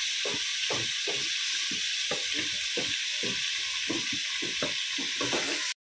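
Marinated chicken and sliced onions sizzling as they fry in oil in a pot, with a spatula stirring and scraping through them about three strokes a second. The sound cuts off suddenly near the end.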